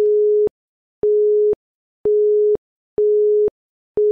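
Quiz countdown timer beeping: a plain steady tone, each beep about half a second long and starting and stopping abruptly, repeated once a second, five beeps in all as the count runs down.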